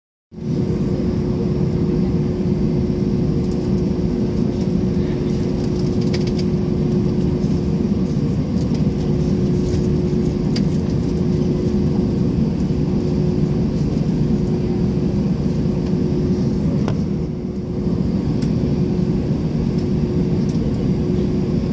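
Steady cabin noise inside a jet airliner taxiing on the ground: a low rumble with a steady hum running through it. There are a few faint clicks, and the noise dips briefly about three-quarters of the way through.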